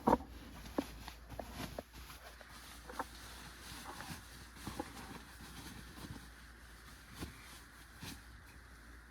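Faint rustling and scattered light clicks of handling as a compressible Therm-a-Rest camp pillow is unfolded.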